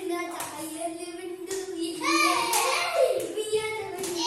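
Children's voices singing or chanting a held, wavering tune, with a few sharp hand claps.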